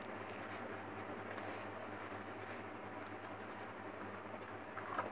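White paper being folded into accordion pleats by hand: a few faint rustles and crinkles over a steady background hiss.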